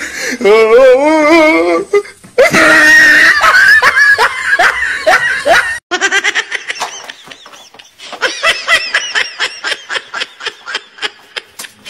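People laughing hard in quick repeated bursts. The sound changes abruptly twice.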